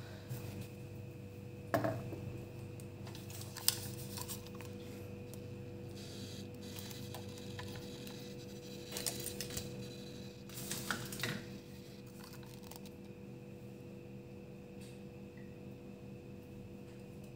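A few sharp clinks and knocks of kitchenware, two single knocks followed later by two short bursts of clatter, over a steady hum.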